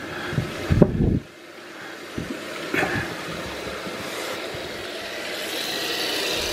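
A few knocks and rubbing from a hand feeling around the toilet's water supply connection, then a steady hiss of water running through a newly fitted Fluidmaster 400 fill valve as the toilet tank refills, growing louder over the last few seconds.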